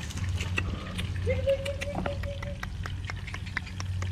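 A hen gives one drawn-out, level call lasting over a second, starting about a second in, over scattered light clicks and a steady low hum.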